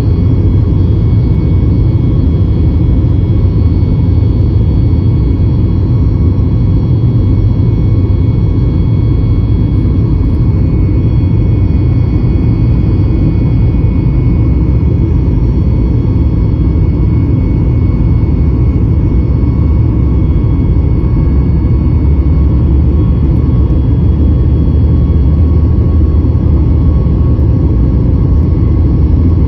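Jet airliner heard from inside the cabin beside the engine: a loud, steady deep rumble with several faint steady whining tones above it, unchanging throughout, with the plane on the ground at the runway.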